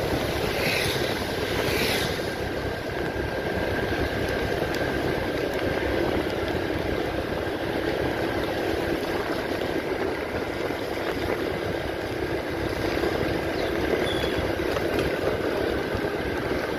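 Steady running noise of a vehicle travelling along a road, a dense even rush with a faint steady engine hum underneath. Two brief hissing sweeps come in the first two seconds.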